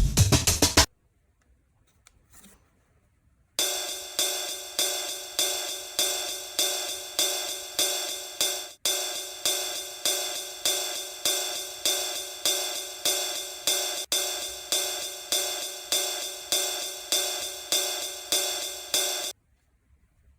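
Electronic background music that cuts off under a second in; after a short pause, a bright, shimmering looped music pattern pulsing about twice a second plays and then stops shortly before the end.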